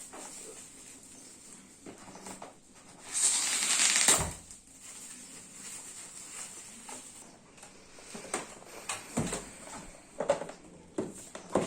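Plastic wrapping being torn and pulled off a keyboard box: a loud burst of rustling tearing about three seconds in, lasting about a second, then scattered crinkles and handling clicks.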